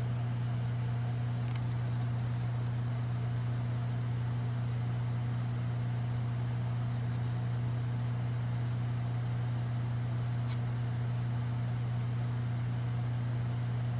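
A steady low hum with a faint hiss, with one faint click about ten and a half seconds in.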